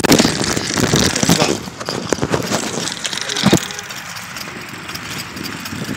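Bicycle riding noise picked up by a handlebar-mounted phone: wind and rattling over the ground, with a sharp knock about three and a half seconds in as the bike bumps from the grass onto the sidewalk.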